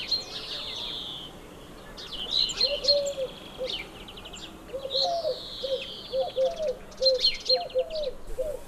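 Songbirds singing, with high chirps and quick trills. From about two and a half seconds in they are joined by a run of short, lower notes repeating a few times a second.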